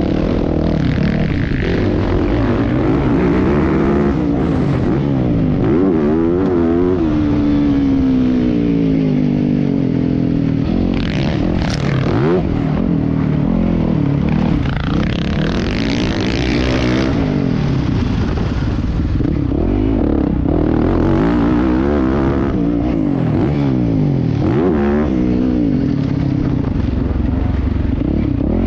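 Motocross bike engine revving up and falling off over and over as it is ridden hard around a dirt track, heard from the rider's helmet.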